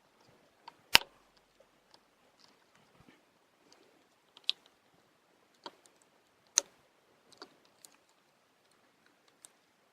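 Scattered small sharp clicks and taps of smartphone parts being handled and fitted during reassembly, the loudest about a second in and again past the middle.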